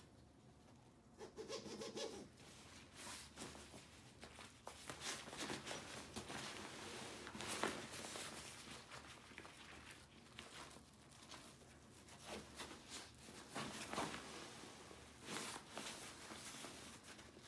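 Rustling and crinkling of a ULA Catalyst backpack's grid-ripstop fabric as it is handled and its roll-top opening pulled and folded, in irregular bursts with light knocks, with a stuffed down sleeping bag inside.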